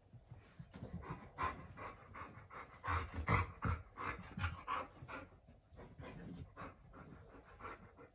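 Alaskan Malamutes panting in quick short breaths while they play-wrestle, busiest about three to five seconds in.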